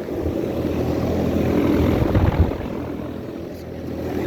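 Outdoor central air-conditioner condensing unit running: a steady rush of air from the condenser fan over a low, even electrical hum from the compressor.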